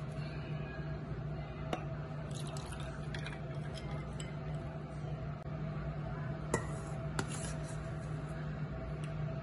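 Milk poured from a jug over ice cubes in a glass tumbler, splashing and filling for a couple of seconds, with a few sharp clinks of glass later on.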